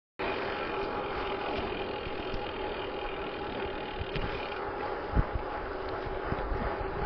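Corratec All Road 3 bicycle rolling on the road, its rear freehub ratcheting as it coasts, over steady tyre and riding noise. The sound starts suddenly just after the beginning, and two low thumps come near the middle.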